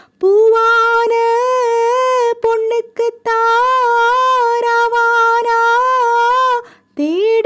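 A woman singing a Tamil song solo, holding long drawn-out notes with a slow waver, broken by short pauses for breath, and sliding up into a new phrase near the end.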